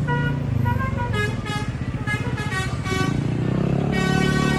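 Basuri telolet multi-tone bus horn playing several quick runs of short melodic notes at changing pitches, ending with a longer held note. The bus's engine runs underneath.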